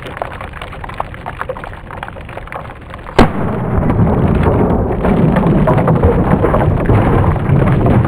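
A single .357 Magnum revolver shot about three seconds in, striking and bursting a pumpkin. Around it runs a steady rushing, crackling noise that grows louder after the shot.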